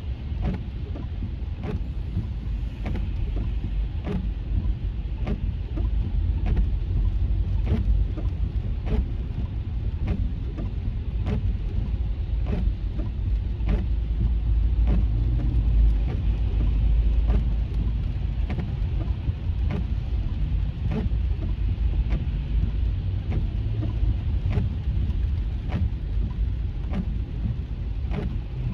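Car cabin noise while driving in heavy rain: a low, steady road and engine rumble with the hiss of rain on the car. Light, regular ticks come a little faster than one a second, in step with the windshield wipers sweeping.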